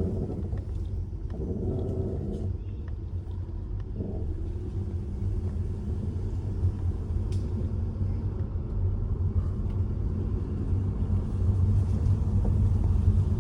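Car engine idling with a steady low rumble, and in the first few seconds a couple of short creaks from the front suspension as the steering wheel is turned.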